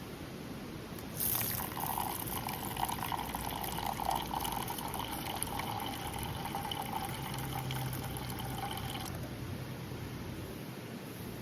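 Water being poured into a container, starting suddenly about a second in, ringing with a steady resonant tone, and stopping abruptly near the end.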